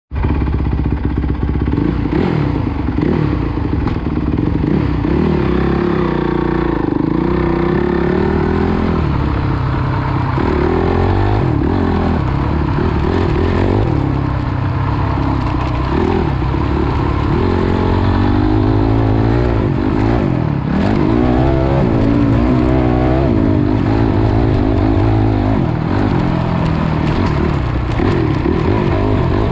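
Dirt bike engine heard on board while riding a motocross track. Its pitch climbs and drops again and again as the bike accelerates, shifts gear and rolls off.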